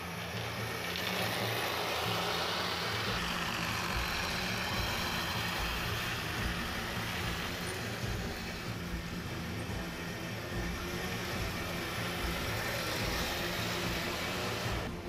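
Taigen M41 Walker Bulldog 1/16 RC tank driving: its sound unit plays a steady simulated tank-engine rumble over the whir and rattle of its metal gearbox and tracks, growing louder about a second in as it gets moving.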